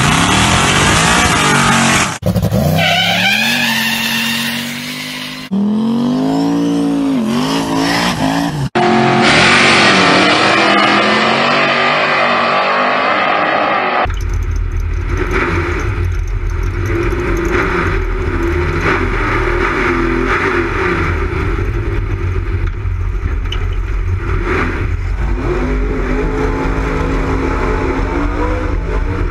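Drag-race car engines revving, the pitch rising and falling in short clips that cut off abruptly several times, then a steady, deep engine rumble for the second half.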